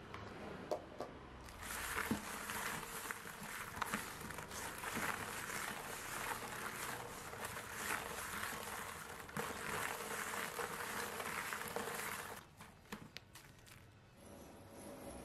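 Small green limes rubbed and rolled by hand with coarse salt against the inside of a bowl: a gritty scrubbing with the knock of the fruit against the bowl, starting a couple of seconds in and stopping about three seconds before the end, followed by a few light knocks.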